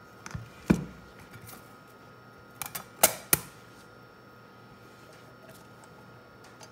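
Handling clicks and knocks as a UHF CB radio's case and chassis are fitted back together on a workbench: a couple of sharp knocks about half a second in, and a cluster of louder clicks about three seconds in.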